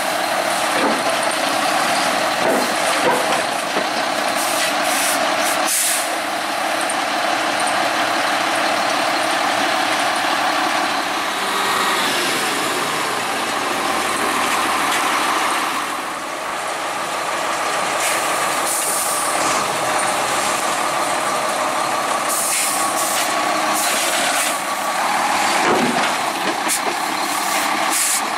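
Heavy diesel engine running steadily close by, with short bursts of hissing now and then.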